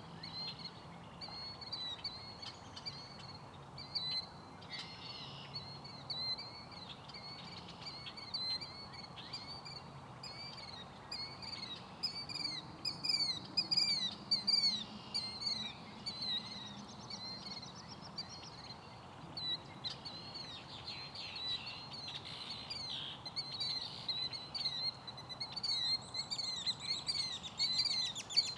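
Killdeer giving their shrill, wailing calls over and over, with red-winged blackbirds calling among them. The calls are short, downward-sliding notes that come thickest in the middle and near the end, over a steady low background hum.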